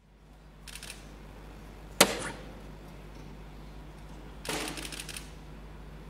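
A soft-tip dart striking a Phoenix electronic dartboard with one sharp click about two seconds in, followed a few seconds later by a short burst of clicking, over a low steady hum.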